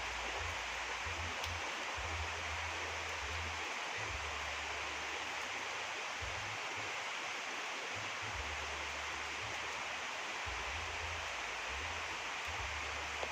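Steady rain falling, an even continuous hiss with no break.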